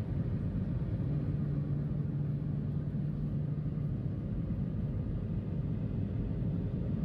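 Steady low rumble of an airliner in flight, heard from inside the passenger cabin, with a low hum that comes in about a second in and drops away around four seconds.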